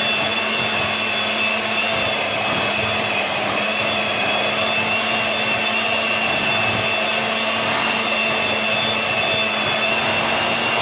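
Electric mixer running steadily at constant speed, its beaters whipping cream cheese and thickened cream into a cheesecake filling.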